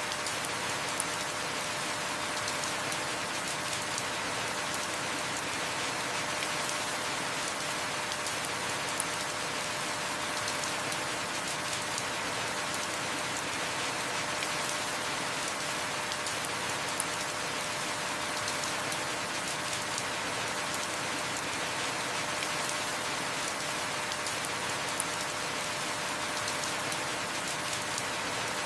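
Heavy rain falling steadily, an even hiss of rain on surfaces, with a single sharp drip-like tick about every eight seconds.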